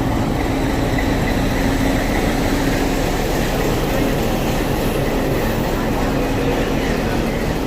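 Nilgiri Mountain Railway toy train's locomotive running steadily at the station, a loud, even engine hum with a constant low drone.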